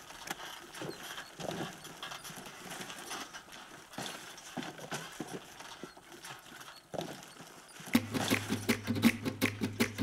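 Irregular knocks and clatter of stiff cork bark slabs being handled and hung on a chain scale for weighing. About eight seconds in, strummed guitar music comes in.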